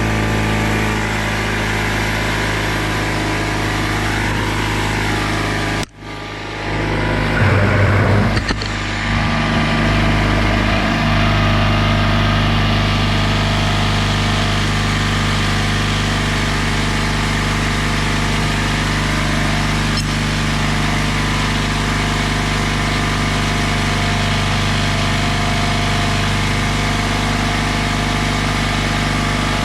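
Craftsman oilless air compressor running, its motor and pump building pressure in the tank. It runs steadily, cuts out briefly about six seconds in, then runs on.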